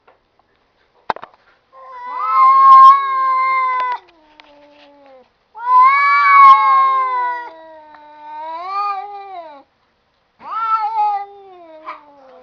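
Domestic cats yowling in long, drawn-out meows, about four calls one after another with short pauses between them, like a back-and-forth conversation.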